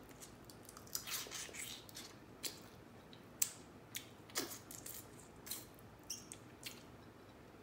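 Eating seasoned blue crabs: irregular short cracks and clicks of crab shell being broken apart, mixed with wet chewing, about one every half second.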